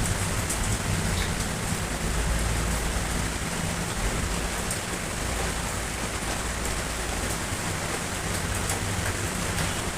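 Steady rain, with faint scattered drop ticks and a low rumble underneath that swells for a few seconds near the middle.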